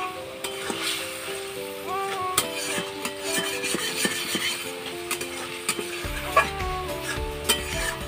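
A metal spatula stirs and scrapes frying potatoes and pointed gourd in a metal kadai, with sharp clinks against the pan and sizzling. It plays over background music with a melody, and a bass line joins about six seconds in.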